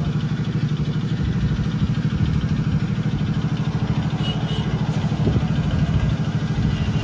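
Small engine of a homemade mini Massey Ferguson 385 tractor idling steadily with a rapid, even chug.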